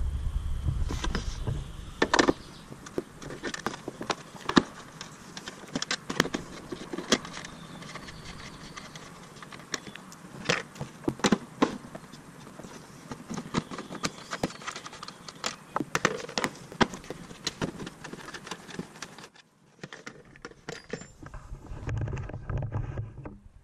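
Irregular clicks, taps and light rattles of hand work on a car's rear tail-light housing: the plastic trunk liner being pulled back and a 10 mm socket wrench on the light's nuts. The clicking stops about nineteen seconds in.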